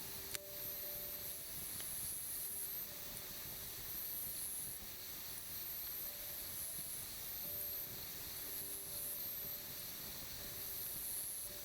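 Quiet outdoor ambience: a steady hiss with high chirring calls repeating about once a second, and a few faint clicks.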